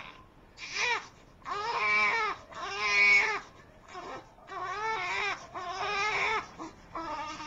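Infant crying: a string of wailing cries with short breaths between them, the loudest about three seconds in.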